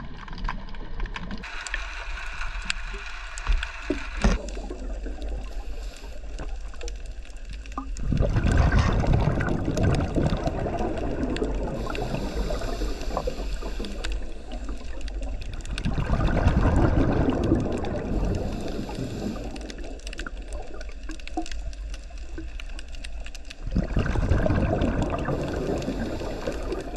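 Underwater, a scuba diver's exhaled bubbles gurgle out of the regulator in three loud bursts several seconds apart, with a quieter hiss and scattered small clicks between them.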